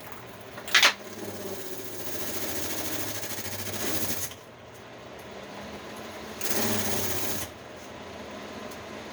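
Window air conditioner being powered up for a test: a loud click about a second in, then an electrical buzzing hum that swells for about three seconds, falls back, and swells again briefly past the middle.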